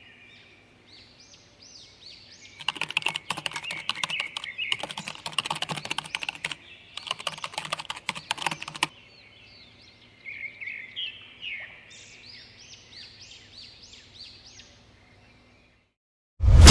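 Rapid keyboard typing in three runs of about two seconds each, over small birds chirping in short repeated calls. A sudden loud hit comes right at the end.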